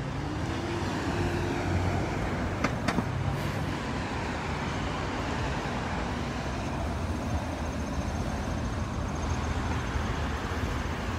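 Road traffic at a busy intersection: cars driving past, their engines and tyres making a steady noise. A couple of short clicks sound about three seconds in.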